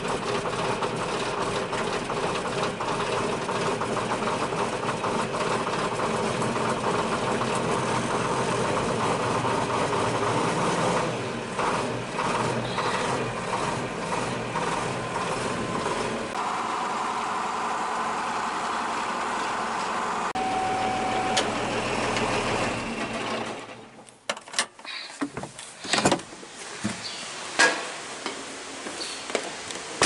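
A tractor's diesel engine running, heard from inside the cab, freshly started with dark smoke coming from its stack. Its sound shifts about halfway through, a short tone sounds briefly, and then the engine shuts off with several seconds to go. A few separate knocks and clatters follow.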